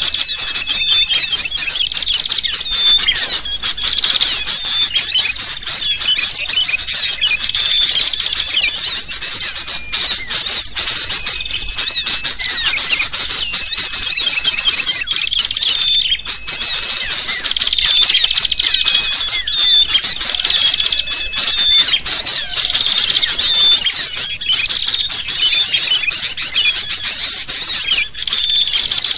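Noisy, excited calling of sooty-headed bulbuls (kutilang) mixed with the chirps of small birds: a dense, unbroken tangle of overlapping chatter and short whistles. It is a bird-lure recording meant to draw wild birds in.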